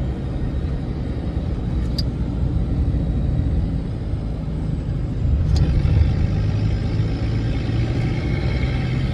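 A road vehicle driving along, a steady low rumble of engine and road noise, with two brief sharp clicks about two seconds and five and a half seconds in.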